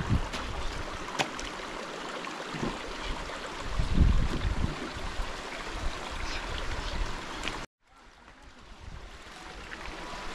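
Rushing river water with gusts of wind on the microphone. About three-quarters of the way through the sound cuts out for a moment, then fades back in.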